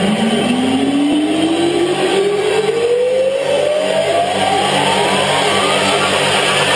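Electronic dance music build-up played loud over a concert sound system: a single riser tone sweeps steadily upward in pitch for several seconds over a dense, noisy wash.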